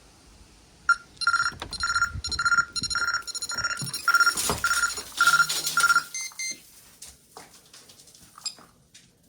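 Scantronic ION intruder alarm beeping: a run of about ten short, same-pitched beeps, roughly two a second, then two brief higher beeps about six seconds in, after which the beeping stops. This is the warning sounded on opening the door, before the system is unset.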